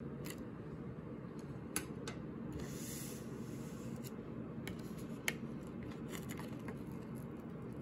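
Light handling of a plastic-wrapped instant-noodle cup on a wooden table: a few sharp taps and clicks, and a brief plastic crinkling rustle near the middle, over a steady low background hum.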